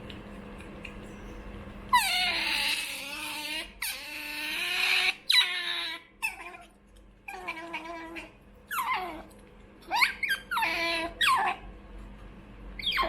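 Pet otter squealing to beg for food. A series of high, wavering squeals starts about two seconds in, some short and some over a second long, with brief pauses between them.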